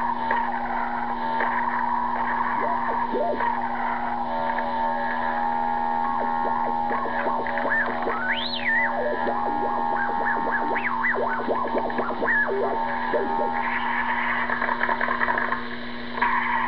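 Electronic sound effects from a CB radio noise toy, heard over a CB radio: a run of quick chirping and warbling pitch sweeps over a steady hum, with one large sweep up and back down about halfway through.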